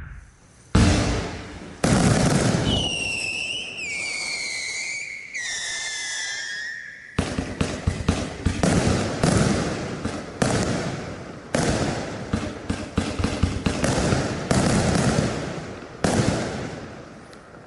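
Compound firework battery firing: two heavy launch shots, then several overlapping falling whistles from howling comets. From about seven seconds a rapid run of shots and bursts follows, dying away near the end.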